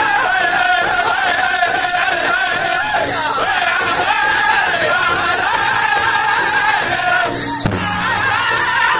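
Powwow drum group singing a grass dance song, several men's high-pitched voices in unison over a large powwow drum struck together in a steady beat. Near the end the voices break off briefly at a hard drum stroke, then the singing goes on.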